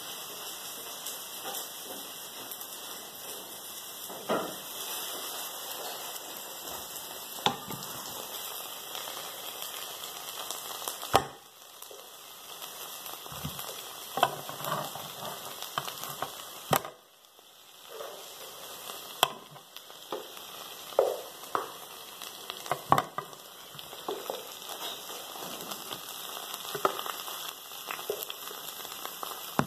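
Ribs frying in a sticky glaze in a frying pan: a steady sizzle, with sharp knocks and scrapes of a wooden spatula and the pan every few seconds.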